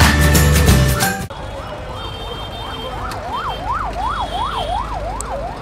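Intro music cuts off about a second in. Then comes steady street noise with an electronic siren warbling up and down, about three sweeps a second, loudest near the middle.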